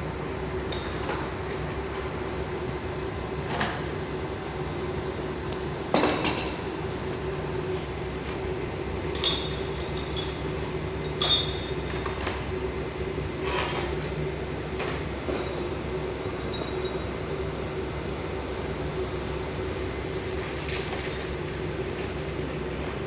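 Orbital welding equipment on stainless steel running with a steady mechanical hum. There are a few sharp metallic clinks, the loudest about six seconds in and another about eleven seconds in.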